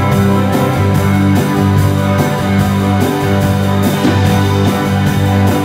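Live indie rock band playing: electric bass holding low notes and electric guitar, over a steady beat of about two strokes a second, with no singing.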